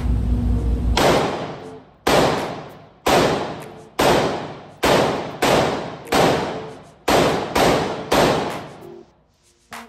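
Ten single shots from an AR-15 rifle in .223, fired at a pace of about one a second with a few quicker follow-ups, the first coming about a second in. Each shot echoes and dies away slowly in the indoor range.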